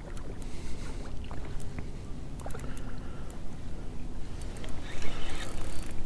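Steady low rumble of a small fishing boat on the water, with a faint even hum and a few small clicks.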